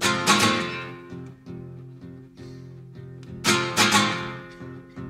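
Acoustic guitar playing a song's instrumental introduction: a loud strummed chord at the start and another about three and a half seconds in, each left to ring and fade, with lighter picked notes between.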